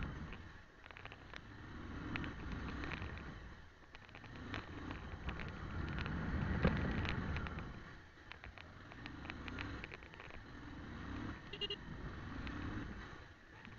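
Motorcycle engine and road rumble heard on the bike-mounted camera while riding, the level swelling and fading every few seconds.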